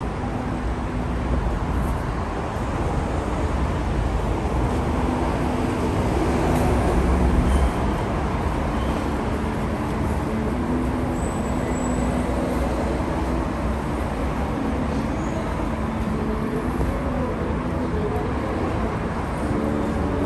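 Steady road traffic noise on a busy city street, with a deep rumble that swells about seven seconds in, and faint voices of passers-by.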